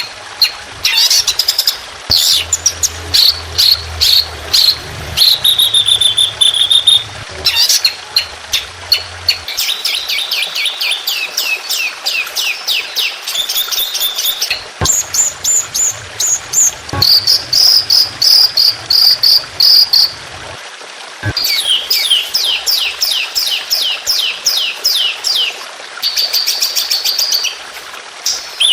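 Songbird song in fast runs of sharp repeated chirps and high trills, several seconds each with short breaks. It is a masteran tutor track of rapid 'tembakan' fill-in phrases used to teach songbirds.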